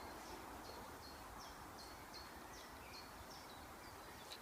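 A small songbird singing faintly: a steady run of short, high, down-slurred notes, about two or three a second.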